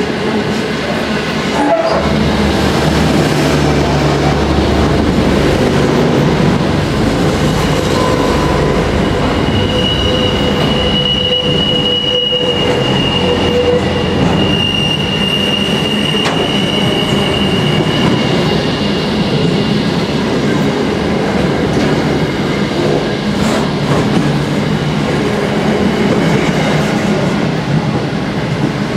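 Intermodal freight train's container flat wagons rolling past, a steady rumble of wheels on rail. A high-pitched wheel squeal is held for several seconds near the middle.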